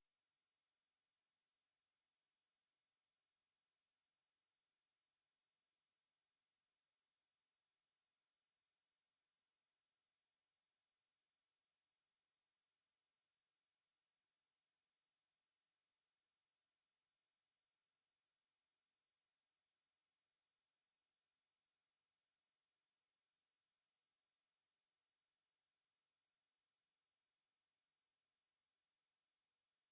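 A pure 5503 Hz sine-wave test tone: one steady high-pitched tone, unchanging in pitch and level, generated for testing speakers and headphones.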